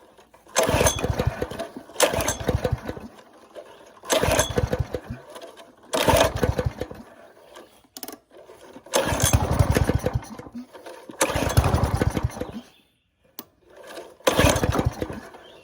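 Old garden tiller's small engine being pull-started about seven times in a row, each pull giving about a second of pulsing engine noise that dies away again: it won't keep running, typical of a carburetor and fuel line fouled with debris.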